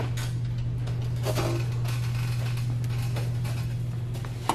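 Steady low hum with faint rustling and light handling noises.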